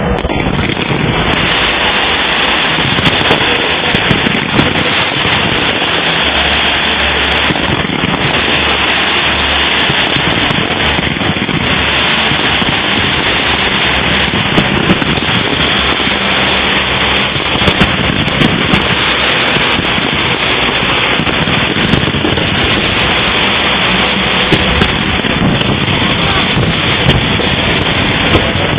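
Fireworks display going off in a dense, continuous barrage of crackling with many sharp bangs scattered through it.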